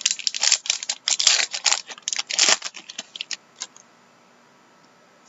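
Trading cards and their packaging being handled: a dense crinkling, rustling burst lasting about two and a half seconds, then a few light clicks that die away.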